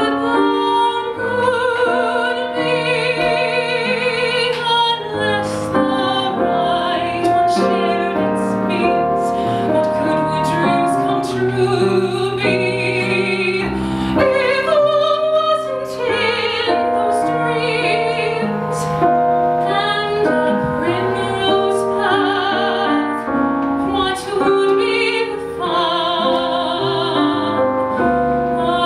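A woman singing a musical-theatre ballad in a classical, operatic style with vibrato, held notes and phrases, over piano accompaniment.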